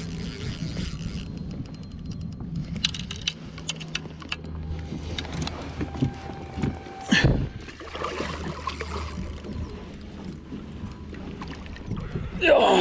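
Sounds aboard a small fishing boat: a steady low hum with scattered clicks and knocks, and one loud thump about seven seconds in.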